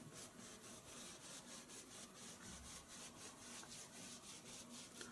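Faint scrubbing of a paintbrush working oil paint on canvas, in quick, even back-and-forth strokes of about four a second.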